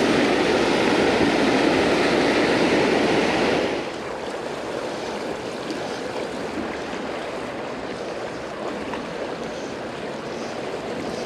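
Loud, steady rush of river rapids. About four seconds in it cuts abruptly to a quieter, even rush of smoothly flowing creek water.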